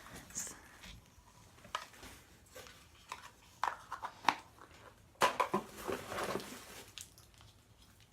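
Objects and packaging being handled: scattered clicks and knocks, then a stretch of rustling and crackling a little after the midpoint, lasting over a second.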